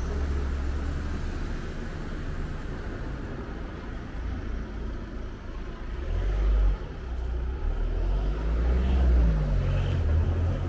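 Street traffic: a motor vehicle's engine running over a steady low rumble, getting louder about six seconds in.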